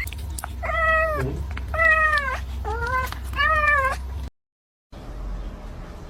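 A cat meowing four times in quick succession, each meow a short pitched call that rises and falls. The sound drops out completely for about half a second after the fourth meow.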